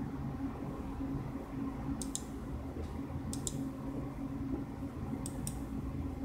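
Three quick double clicks of a computer mouse button, about a second and a half apart, over a steady low hum.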